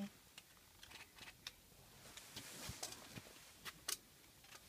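Faint, irregular scuffs and ticks of footsteps on a gritty dirt and sandstone trail.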